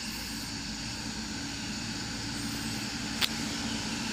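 Mitsubishi Canter diesel truck running in the distance as it approaches, a steady low engine hum that slowly grows louder; a single sharp click about three seconds in.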